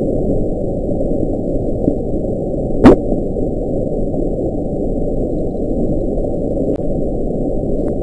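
The Bloop, NOAA's 1997 underwater hydrophone recording: a steady, muffled low hiss of ocean noise with one short rising sweep about three seconds in.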